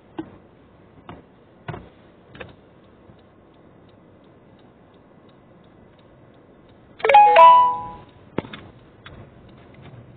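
A few short clicks, then about seven seconds in a loud two-note chime, struck twice in quick succession and ringing out for under a second.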